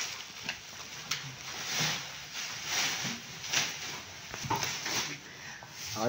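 Cattle shed sounds: soft rustling scuffs, about once a second, of hooves, feet and muzzles in sawdust bedding and feed.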